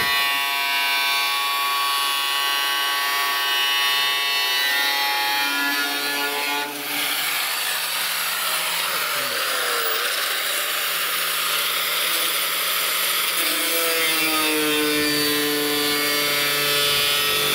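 Angle grinder with a cut-off wheel cutting through the sheet steel of a 1964 Chevy II Nova's rear quarter panel. A steady high-pitched whine and grinding, with the pitch sagging and shifting a few times as the disc bites into the metal.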